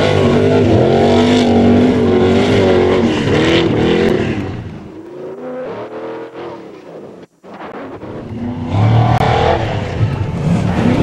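Off-road truck engines revving hard under full throttle, pitch rising and falling. The sound falls away after about four seconds, breaks off briefly, then comes back loud near the end.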